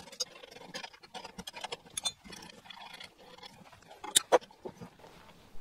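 Light metallic clicks and clinks of spanners on a motorcycle fork's top cap and of a homemade spring compressor's steel lever arm, with two sharper metal knocks a little past four seconds in.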